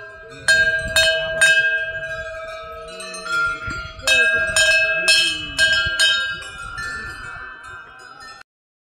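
Hindu temple bells rung by hand: two runs of strikes about two a second, the ringing tones overlapping and dying away between them. The sound cuts off suddenly near the end.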